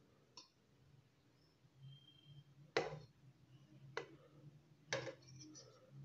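A metal fork clinking lightly against a ceramic bowl, a few separate clicks, while a flour-coated cheese stick is turned in beaten egg.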